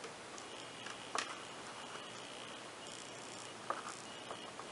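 A few small, sharp clicks and taps of plastic and glass, the sharpest about a second in, as a replacement LCD and touchscreen assembly is pressed and shifted into a Nexus 7 tablet's frame by hand. Faint steady hiss underneath.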